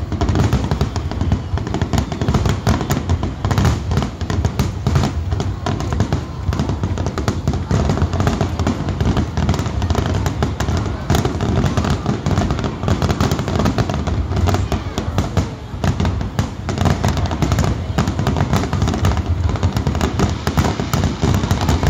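Aerial fireworks bursting in a dense, unbroken barrage, many booms and crackles overlapping.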